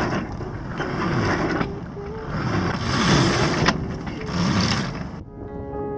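Wind buffeting the microphone aboard a sailing yacht under sail, rising and falling in gusts. About five seconds in it cuts off abruptly and soft piano music begins.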